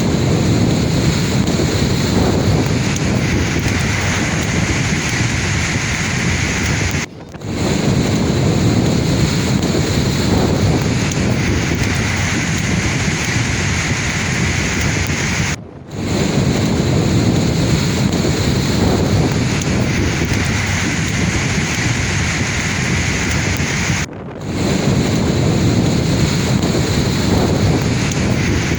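Sea waves washing in a steady, dense rush of surf. The sound briefly drops out three times, about every eight and a half seconds.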